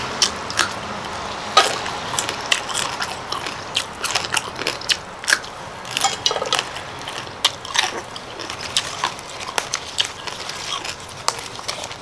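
A person chewing crisp raw vegetables: many irregular, sharp crunches in quick succession.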